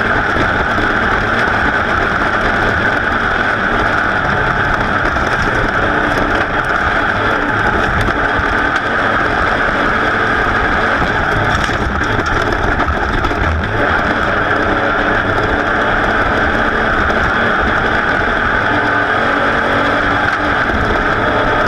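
A racing vehicle's engine running hard at speed, mixed with heavy wind rushing over an onboard microphone, loud and steady throughout.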